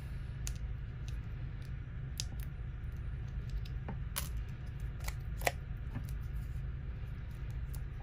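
Small plastic clicks and taps from a GoPro Hero 8 Black being handled as its side door is opened and the SD card taken out, a few sharp clicks standing out about four to five and a half seconds in. A steady low hum runs underneath.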